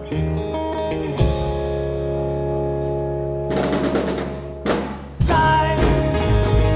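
Live rock band playing an instrumental passage: guitar and bass chords ring out, with cymbal and drum hits a little past the middle, then the full band with drums comes back in louder about five seconds in.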